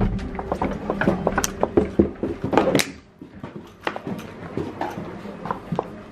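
Revolving door turning, with clicks and knocks from its mechanism and footsteps on its floor. About three seconds in the background din drops away, and only scattered quieter footsteps follow.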